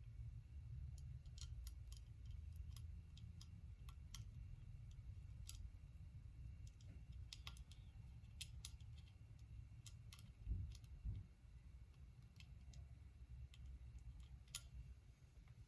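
Faint, scattered small clicks and taps of metal parts being handled while an Andis Master hair clipper is put back together, with two dull thumps about ten and eleven seconds in.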